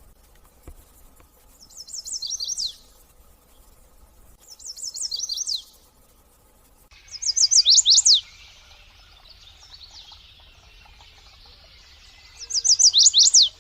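A small songbird singing four short phrases of rapid, high, falling notes, each about a second long and a few seconds apart; the last two phrases are louder.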